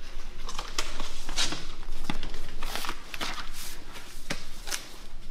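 Irregular clicks and rustles of things being handled at a metal school locker, about two a second.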